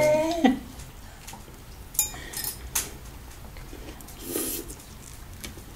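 Quiet table sounds of two people eating salad: a few soft clicks and clinks of cutlery and dishes and quiet chewing, after a held musical note dies away in the first half second.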